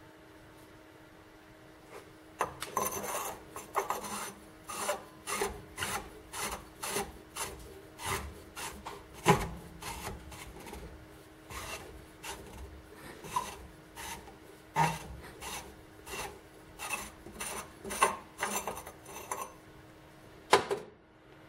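A hand tool rasps rust off a corroded steel mortar part clamped in a vise, in repeated back-and-forth strokes about two a second. The strokes start about two seconds in, with a couple of sharper metal knocks among them. A faint steady hum sits underneath.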